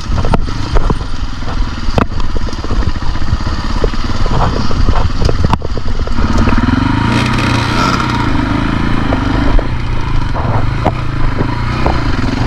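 KTM dirt bike engine running at varying revs, its pitch rising and falling repeatedly from about halfway, with many sharp knocks and rattles over it.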